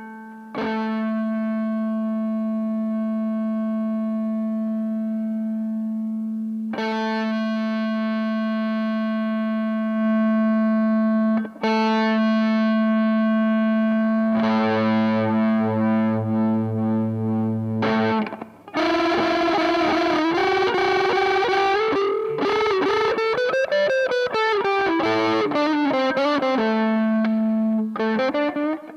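Electric guitar played through a BOSS OD-2 Turbo Overdrive pedal, giving a distorted tone. Long held notes ring out and are re-struck every few seconds, with a lower note joining in midway. In the last third, lead lines with string bends and vibrato take over.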